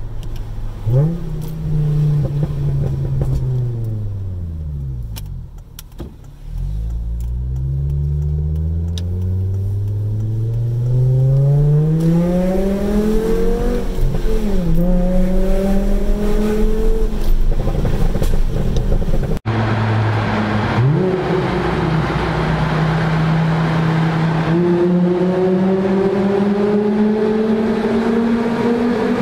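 2007 Volvo C30 2.4i inline five-cylinder engine through a straight-through muffler with the rear resonator deleted. It blips once, then the revs fall with a few sharp crackles and pops on the overrun. It pulls hard with the pitch climbing and a brief dip at a gear change; after a cut it blips again, climbs steadily and falls off near the end.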